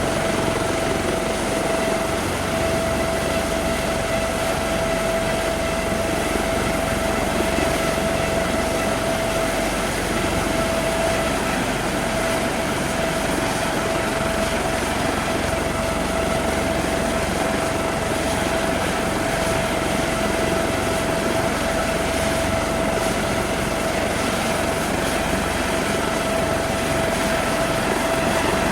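Helicopter idling: a steady, high whine over an even rushing engine noise, unchanging throughout.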